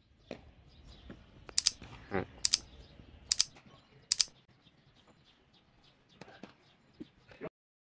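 Four sharp clicks, evenly spaced a little under a second apart: a mouse-click sound effect laid over a subscribe-button animation, above faint outdoor background noise. The sound cuts out abruptly near the end.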